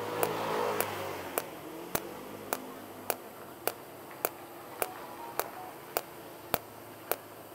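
Tenya TIG250PC TIG welder in cold-TIG mode, firing its automatic spot pulses at a fast rate: a steady train of sharp clicks, just under two a second. A faint low hum fades out over the first few seconds.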